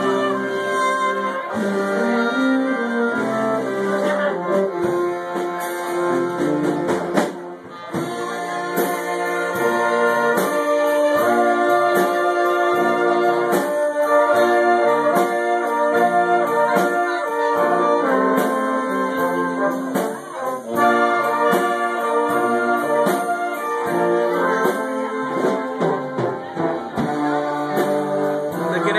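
Live German-style band playing a tune: trumpets, trombone and tuba with accordions and clarinet.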